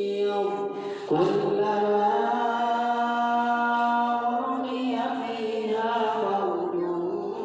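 Melodic Quran recitation chanted in long, drawn-out notes that slide between pitches. A new phrase starts louder about a second in.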